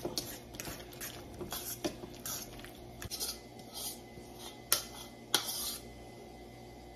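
A fork scraping and stirring through a thick shredded-chicken and cheese mixture in a bowl, then a spoon scooping portions out, with two sharp clicks a little past the middle. The utensil sounds stop about six seconds in.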